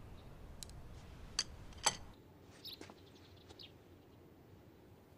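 Quiet room tone with a few sharp clicks in the first two seconds, then several faint bird chirps.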